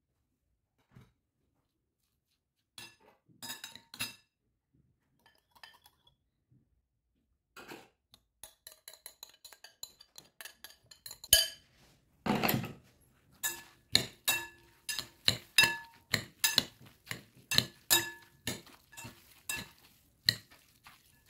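Metal cutlery clinking and scraping against glass bowls: a spoon scraping dressing out of a small glass bowl, then two pieces of cutlery tossing salad in a large glass bowl. The strikes come about twice a second in the second half, each leaving a short ringing glass tone, with one heavier knock about halfway through.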